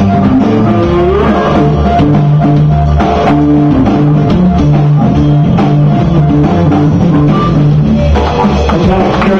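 Live band music: a harmonica played cupped in the hands, with held and bent notes, over a drum kit and guitar keeping a steady beat.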